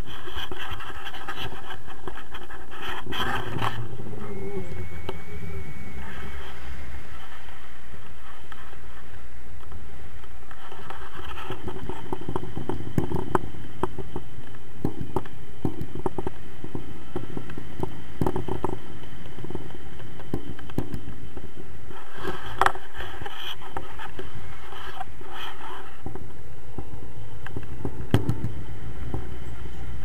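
Wind noise on the action camera's microphone during a tandem paraglider flight: a steady low rumble with scattered clicks and scrapes.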